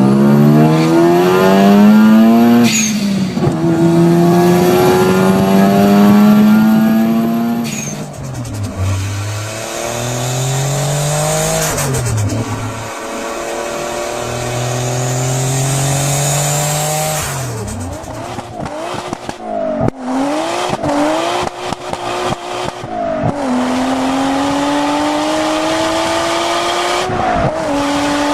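Turbocharged cars accelerating hard through the gears, the engine pitch climbing steadily and then dropping at each shift. A rapid chattering turbo flutter comes on lift-off between gears.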